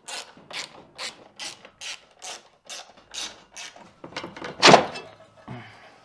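Hand ratchet wrench clicking in quick back-and-forth strokes, about two to three a second, loosening a bolt on the car's underbody brace. A single loud clunk comes near the end.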